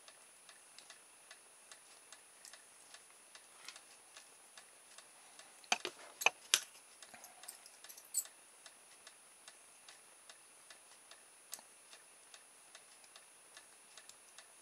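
A few sharp clicks and snaps from small hand tools working on an opened hobby servo, clustered about six seconds in with one more about two seconds later. Underneath runs a steady light ticking, two or three ticks a second.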